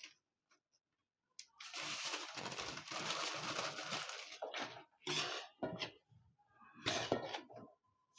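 Desi sugar (khand) poured into a mixture of ground powders in a pan: a granular hiss lasting about three seconds, then a few short scraping sounds.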